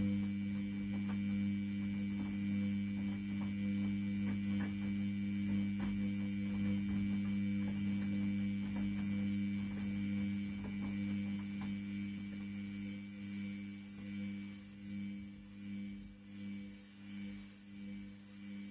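Washing machine motor humming steadily as the drum turns, with faint ticks. In the last few seconds the hum swells and fades about once or twice a second.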